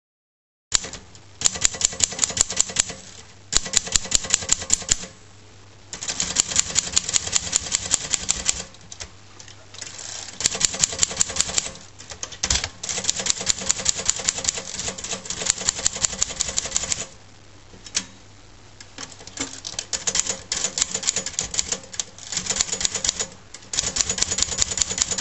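Typewriter being typed on: quick runs of key strikes, several a second, in bursts of a few seconds broken by short pauses, starting about a second in. A low steady hum sits beneath the strikes and pauses.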